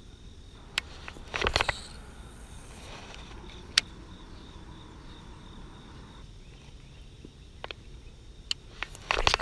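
Steady high insect chirring, typical of crickets, over low outdoor background noise. It is broken by a few sharp clicks and two short bursts of rustling clatter, about one and a half seconds in and again near the end.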